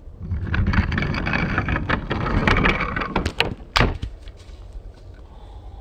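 Wooden toy trains rolling down a raised wooden track: a clattering rumble full of quick clicks for about three seconds, ending in a few sharp knocks.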